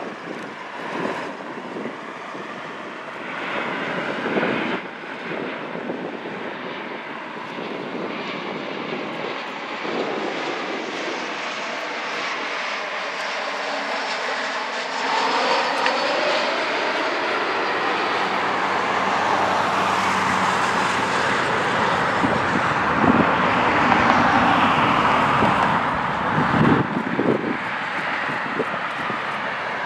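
Southwest Airlines Boeing 737's jet engines on final approach, a steady rumble and whine that grows louder as the plane nears. It is loudest a little past the middle, with the engine tone sliding down in pitch as the plane passes.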